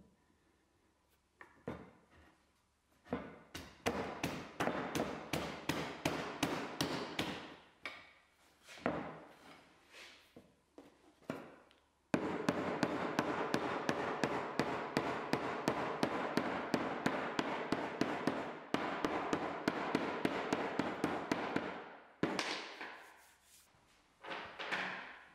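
White mallet knocking rapidly on a solid oak rail, driving a cross-halving joint together. The taps come in short bursts at first, then in a long unbroken run from about halfway in, with one more short burst near the end.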